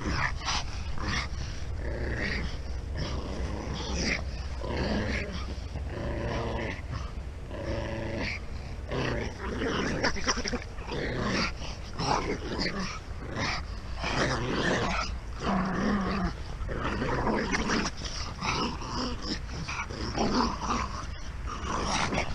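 Two pugs growling in repeated bouts while tugging at a rope toy between them.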